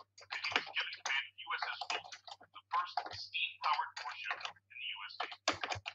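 A person speaking over a thin, distorted-sounding connection, with a low steady hum underneath.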